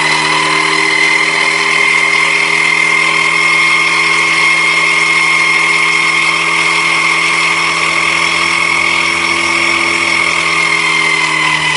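Small electric motor in a home-built device running at speed: a loud, steady whine with its pitch easing down slightly near the end.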